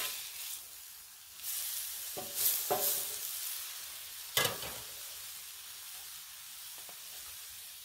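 Ground tri-tip burger patties sizzling on a Blackstone flat-top griddle, one patty freshly pressed with a metal burger press so it steams. A few sharp clicks stand out over the hiss, the loudest about four and a half seconds in.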